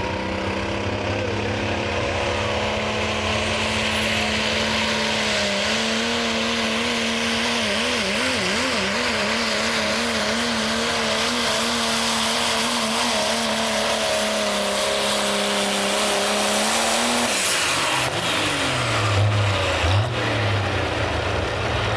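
Turbocharged diesel engine of a Ford Super Duty pickup at full throttle, pulling a weight-transfer sled. It holds a high, steady note with a rising turbo whistle early on. The pitch wavers for a few seconds in the middle, and about three-quarters of the way through the revs fall away sharply as the truck stops and the turbo spools down.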